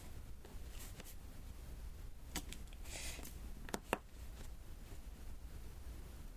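Faint tapping and clicking of round diamond-painting drills being pressed onto the sticky canvas, with a couple of brief scratchy rustles; the sharpest clicks come about two and a half and four seconds in.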